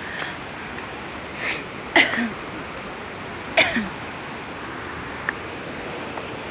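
Short breathy vocal sounds from a person, three times, the last two dropping in pitch, over a steady rushing background noise.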